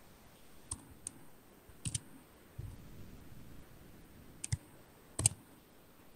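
Sparse, faint clicks of keys on a computer keyboard being typed, about seven in all, some in quick pairs.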